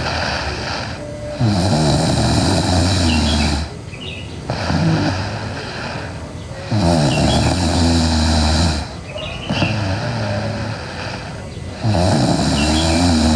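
A sleeping girl snoring loudly: three long rattling snores about five seconds apart, with quieter breathy stretches between them.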